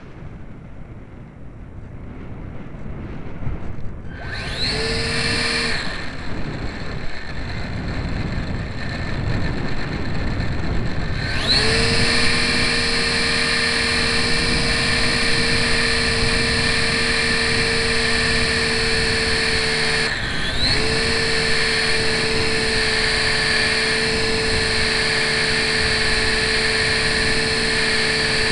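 Wind rushing past the GWS Slow Stick's airframe, then its electric motor and propeller whine up to speed about four and a half seconds in and cut out a second or so later. The motor spins up again near twelve seconds and runs at a steady high whine, with a brief throttle dip and spin-up about twenty seconds in, heard from on board the plane.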